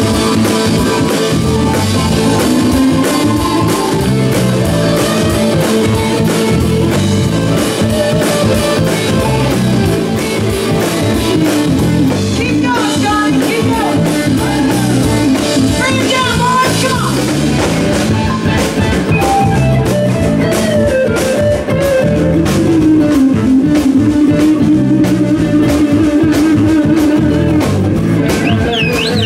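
Live rock band playing: an electric guitar solos with bent notes over the drum kit.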